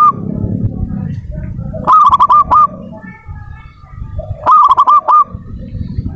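Zebra dove (perkutut) singing: two cooing phrases about two and a half seconds apart, each a quick run of four or five ringing notes, over a low background rumble.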